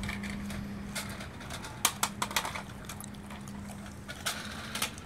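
Large dog chewing a raw turkey neck: sharp bone cracks and wet chewing noises, in clusters about two seconds in and again near the end, over a steady low hum.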